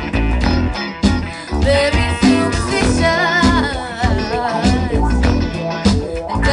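Live band playing through a PA: electric guitars and a drum kit keeping a steady beat, with a woman singing a wavering, held line about three seconds in.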